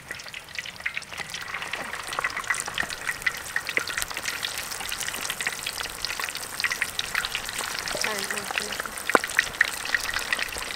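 Battered chicken feet deep-frying in a large wok of hot oil: a dense, steady crackle and sizzle that picks up about a second in.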